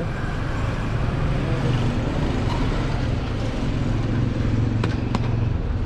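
Steady low rumble of street traffic, cars and motorcycles running past, with two sharp clicks close together near the end.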